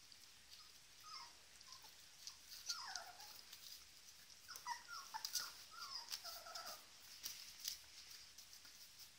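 Young puppies, about three weeks old, whimpering with faint short squeaky cries that rise and fall in pitch, a few about a second in and a cluster between about three and seven seconds in.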